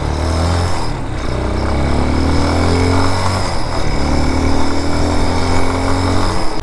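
BSR250 Raven's 229cc air-cooled OHV single-cylinder engine running under load on the road, rising in pitch as it accelerates, easing briefly about three and a half seconds in, then holding a steady cruise. Wind rushes over the microphone throughout.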